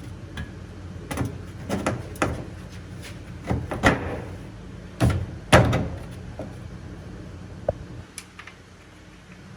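A series of hard clunks and knocks, the loudest two about five and five and a half seconds in, over a steady low hum that drops away about eight seconds in.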